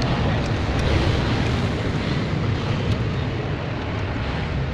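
A steady low rumble of background noise, with a few faint light clicks.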